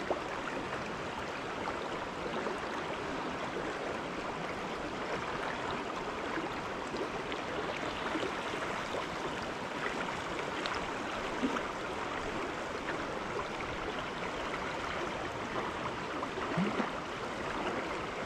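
Steady rushing of a river running fast over a shallow stretch.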